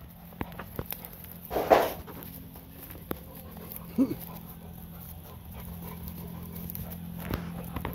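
Two goats locked together after a fight, struggling in the grass: heavy panting breaths, a loud breathy burst about two seconds in and a short low cry about four seconds in, with light scuffing clicks.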